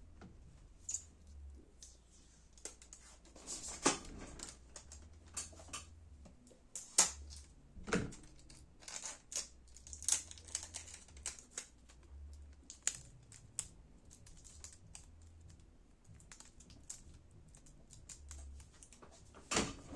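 Irregular light clicks and taps of hands working on laptop keyboard parts, with a few sharper knocks scattered through.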